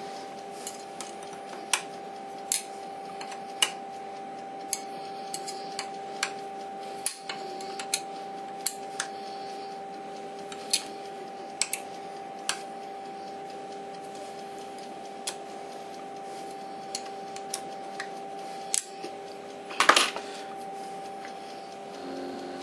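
Metal tool clicking and clinking irregularly against the fixing bolts of an Emco Compact 5 CNC tool turret as they are pinched down, with a louder clatter near the end. A steady hum from the powered-up lathe runs underneath.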